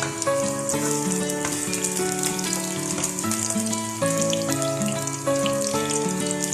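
Food frying in hot oil in a pan, a steady crackling sizzle, over background music with held melodic notes.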